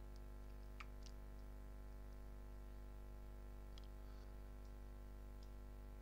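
Low steady electrical hum with a few faint, sparse clicks.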